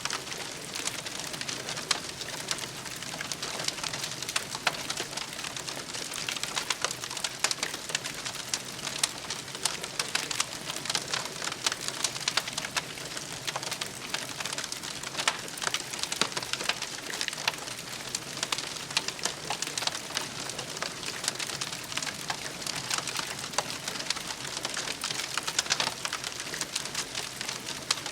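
Campfire burning with steady crackling and frequent irregular pops over a soft hiss.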